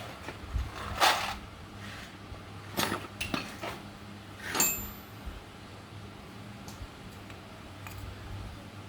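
Metal parts and tools clinking and knocking as they are handled, a handful of sharp strikes with one ringing briefly about halfway through, over a steady low hum.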